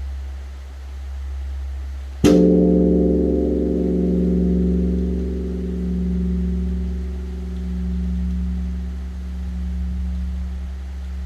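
Large Korean Buddhist temple bronze bell (beomjong) struck once by its wooden log striker about two seconds in. The strike brings a bright clang over the deep hum of the earlier strokes, which keeps swelling and fading slowly as it rings on.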